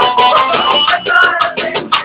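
Upbeat music with a steady, quick percussive beat.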